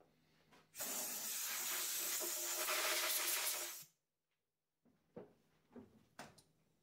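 A steady hiss lasting about three seconds that starts and stops abruptly, followed by a few light clicks near the end.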